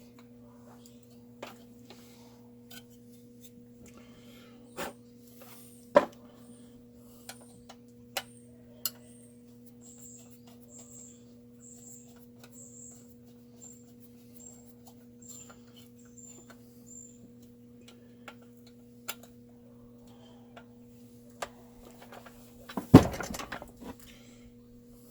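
Scattered clicks and light knocks of tools and metal parts being handled during a chainsaw teardown, over a steady low hum, with a loud clatter near the end. A row of faint high chirps, about two a second, runs through the middle.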